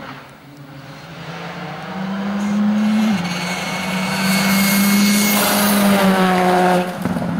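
Rally car engine at high revs on a flat-out approach, growing steadily louder, with its pitch stepping once about three seconds in. It passes close near the end, its pitch bending down and its level dropping sharply as it goes by.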